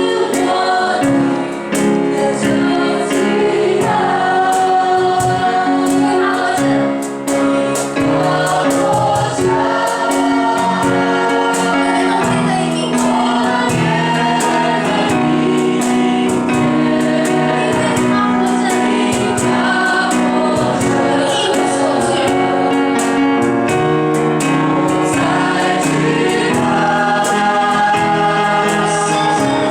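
A choir singing a Christian worship song in Mandarin with instrumental accompaniment and a steady beat.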